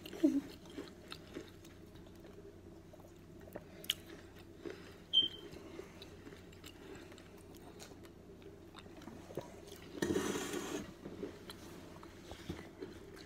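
Chewing and crunching on pieces of a fired clay cantarito cup, with scattered small crunches and a louder burst of crunching about ten seconds in.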